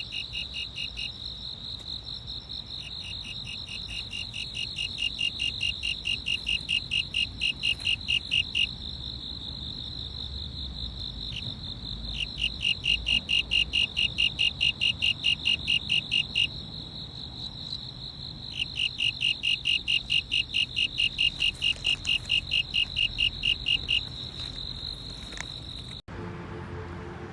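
Insects chirping: a steady high trill, joined by bouts of a second insect's pulsed chirping at about five pulses a second, over a low background rumble. It cuts off abruptly near the end.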